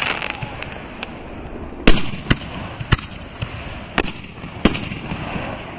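Consumer firework cakes going off: a string of sharp bangs about half a second to a second apart, the loudest about two seconds in.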